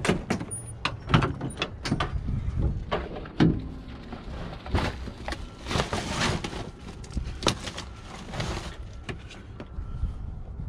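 Clanks and knocks as the rear cargo door of a work van is swung open and gear inside is moved, then several seconds of rustling and scraping as a coil of cable is handled in a canvas bag.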